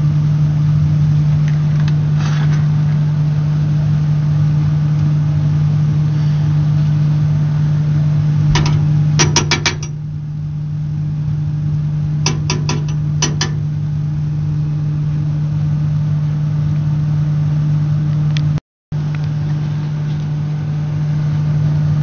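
Rheem gas furnace running with a steady low hum while its gas valve clicks in two quick rattling runs, about nine and twelve seconds in. The valve clicking on and off is the fault being traced, which the repairman thinks could mean the thermocouple is starting to go bad.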